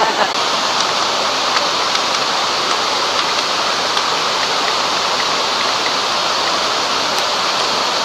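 Waterfall and the stream cascading over rocks below it: a steady rush of falling water.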